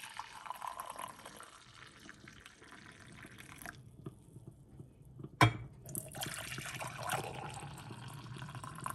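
Coffee poured from a carafe into a mug, a sharp knock about five seconds in, then a second pour into another mug.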